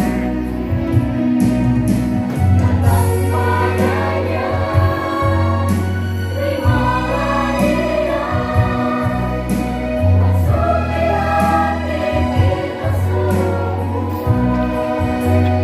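A mixed group of young men and women singing a Christian praise song together, over an accompaniment with sustained bass notes that change every second or two.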